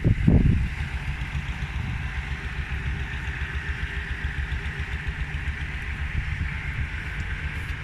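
Excavator's diesel engine running steadily, with a brief louder surge just after the start.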